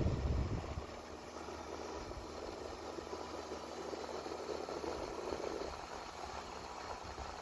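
Window-type air conditioner running, a steady rush of fan air with a faint hum. A heavy low rumble fades out within the first second.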